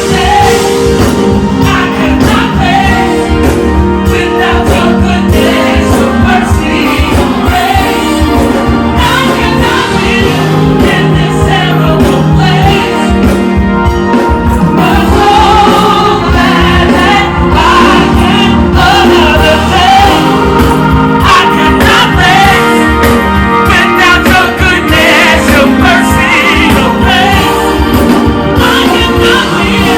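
Live gospel music: several voices singing over instrumental backing with a steady beat.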